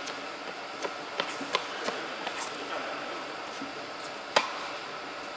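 Scattered sharp knocks of tennis balls on rackets and the hard court in an indoor tennis hall, a few close together in the first two seconds and the sharpest about four seconds in, over a steady hall hum.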